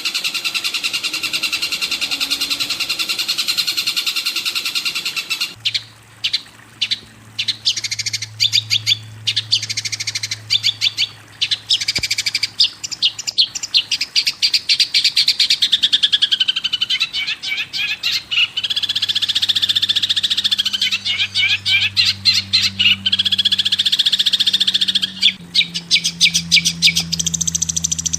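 Songbird song from a bird-training recording: a continuous buzzy trill for about the first five seconds, then fast, chattering runs of sharp chirps and trills.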